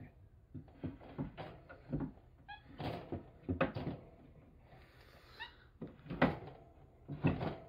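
Wire pet cage rattling and knocking as it is handled and a tufted capuchin climbs on it: irregular knocks, the loudest near the end. Two short high squeaks come about three seconds apart.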